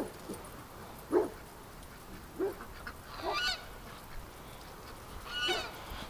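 Domestic geese honking: about five short, separate honks spread across a few seconds, fairly faint.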